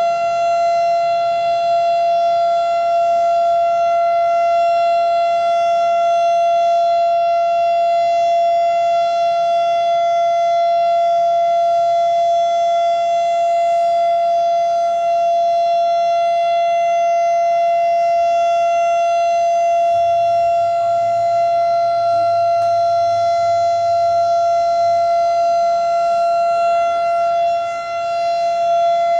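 A warning siren sounding one steady tone, held at the same pitch throughout without rising or falling. It dips briefly in loudness near the end.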